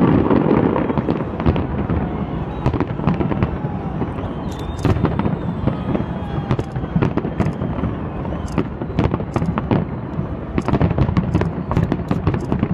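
Aerial fireworks bursting in rapid succession: many sharp bangs and crackles over a continuous low rumble.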